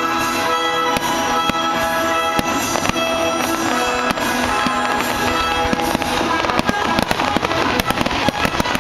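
Aerial fireworks shells bursting and crackling over music, the bangs coming thicker from about six seconds in.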